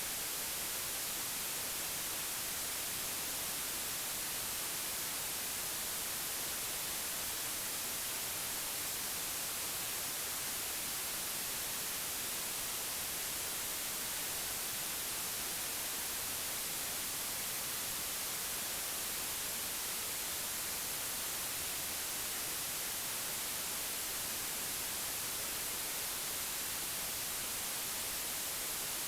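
Steady white noise: an even, unbroken hiss, brightest in the high frequencies.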